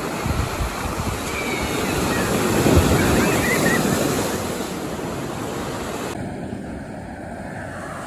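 Big Lake Superior waves breaking on a pebble-and-cobble beach: surf rushes in and builds to a crash about three seconds in, then washes back, with wind buffeting the microphone. The sound turns duller about six seconds in.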